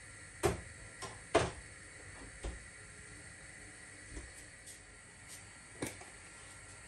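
Kitchen things being handled and put away: about half a dozen sharp knocks and clacks, the two loudest in the first second and a half, over a steady faint hiss.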